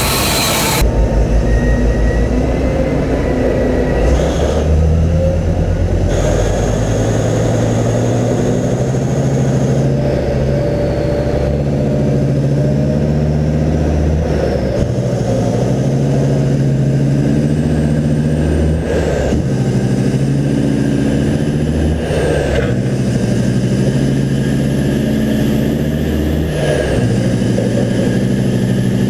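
Caterpillar C175-20 V20 diesel in a mining haul truck, run near full throttle as the truck accelerates up through its gears, its pitch dropping back at each upshift. In the first second, before it, is the tail of a passing train.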